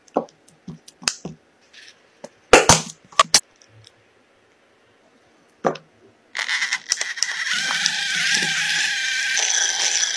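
A silicone spatula stirring a soft cheese mixture in a glass bowl, giving a few sharp clicks and knocks against the glass. About six seconds in, a small electric hand mixer starts and whirs steadily as it whips a thick cream in a glass bowl.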